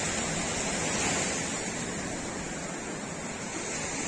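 Sea waves washing onto a beach, a steady rush of surf that swells a little about a second in.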